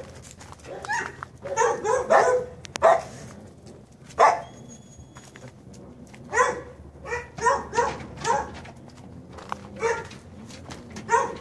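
Dogs barking in short clusters of several barks, with pauses of a second or two between.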